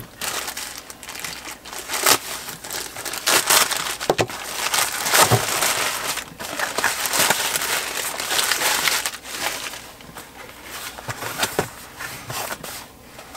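Plastic parcel packaging crinkling and rustling as it is torn open and unwrapped, with scattered sharp clicks and taps as the box inside is handled.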